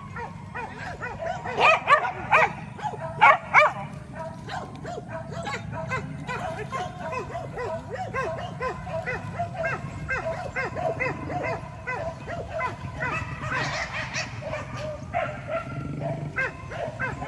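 A pack of hunting dogs barking and yelping together in a steady, overlapping chorus, with several loud barks in the first few seconds.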